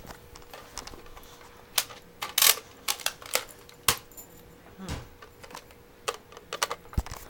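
Plastic clicking and rattling of a Nerf blaster being handled and its chamber spun or shuffled: an irregular series of sharp clicks, loudest about two and a half seconds in.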